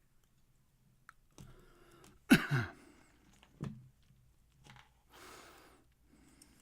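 Lock picking in a pin tumbler lock: scattered scraping and small clicks of the pick and tension wrench in the keyway. A person sighs sharply a little over two seconds in.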